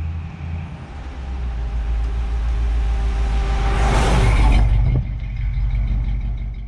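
A car or truck engine rumbling as the vehicle drives up and passes directly over the microphone on an asphalt road. The deep rumble grows louder, peaks with a rushing noise about four seconds in as the vehicle passes overhead, then drops a little a second later and carries on.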